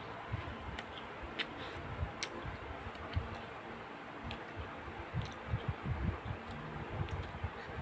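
Eating sounds from a plate of rice and egg: scattered light clicks, such as a utensil touching the plate, and soft chewing thuds, over a faint steady hum.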